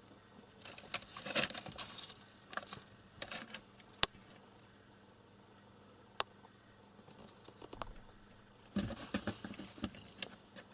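Light pattering, scratching and rustling with a few sharp clicks around a small animal cage with metal bars. The sounds come in scattered bursts, with a denser flurry near the end.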